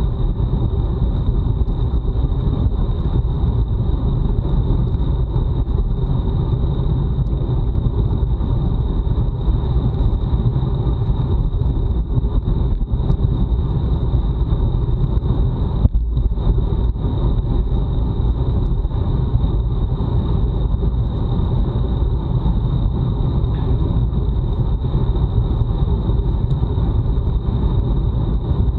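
Wind rushing over a bike-mounted action camera's microphone with tyre and road rumble from a road bike ridden at speed, steady all through, with a thin steady high whine above it.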